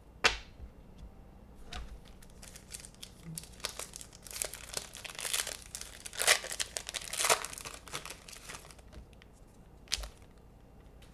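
Trading card pack wrapper being torn open and crinkled, in dense crackling bursts through the middle, with a sharp tap just after the start and another near the end.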